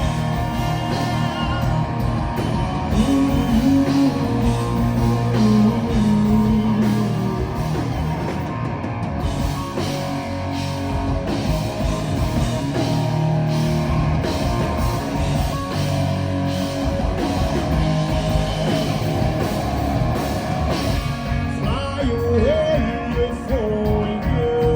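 Live rock band playing, with guitar over a steady drum beat.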